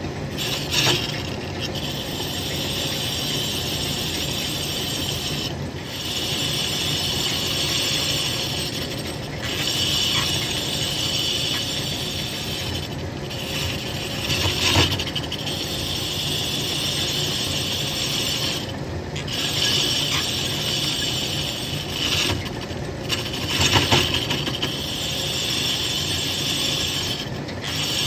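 Metal lathe turning a metal part for a chainsaw cylinder head, the cutting tool scraping across it with a steady high hiss that breaks off briefly every few seconds. Two louder sharp clacks come about halfway through and again near the end.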